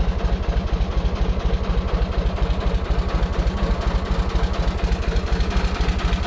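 Tractor engine idling steadily, with an even, rapid throb.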